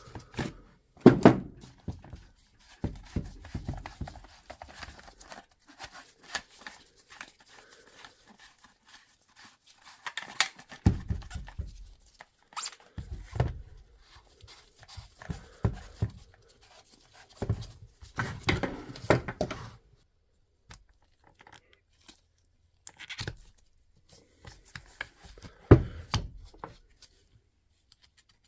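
Irregular knocks, clicks and rattles of a Dewalt DCH253 cordless SDS rotary hammer being handled and taken apart by hand, with no motor running.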